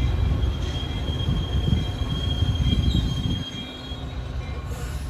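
Commuter train pulling into the station: low rumble of the train with a high, steady metallic squeal lasting a few seconds as it slows, the rumble easing near the end.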